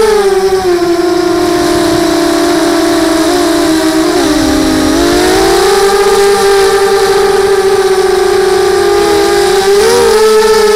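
Electric motors and propellers of a multirotor FPV drone, heard from on board: a loud, steady whine that sinks in pitch about half a second in, dips lowest around four to five seconds, then climbs again as the throttle changes.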